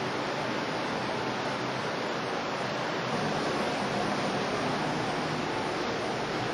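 Steady rushing noise of the sea along the hull of a moving cruise ship, mixed with wind across the open deck.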